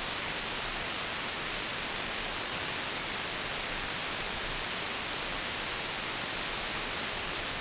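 Steady hiss of shortwave radio static heard through a receiver, with no signal on the channel. It is an even band noise limited to the receiver's narrow audio passband.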